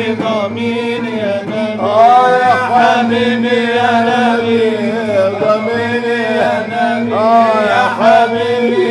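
Egyptian Sufi inshad: a male singer draws out long, ornamented melodic phrases that bend in pitch, over a steady instrumental drone.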